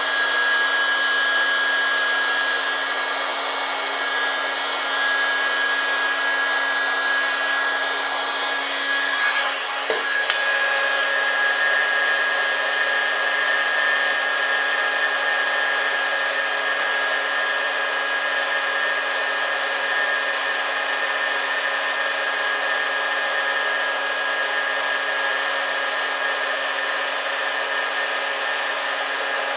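Electric heat gun running steadily, a blowing hiss with a constant whine, used to heat a foam sheet soft enough to bend. A brief knock comes about ten seconds in.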